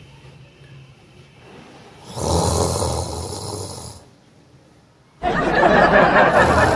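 A man snoring loudly and hoarsely, put on as a prank: one long snore about two seconds in, then a louder one starting about five seconds in and still going at the end.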